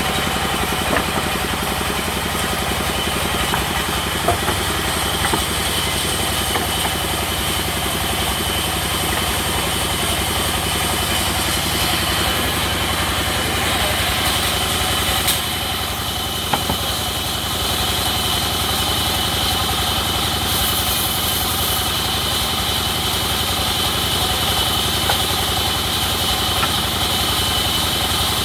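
Sawmill machinery running steadily: a low engine-like hum under a high steady whine that grows louder about halfway through, with a few light knocks.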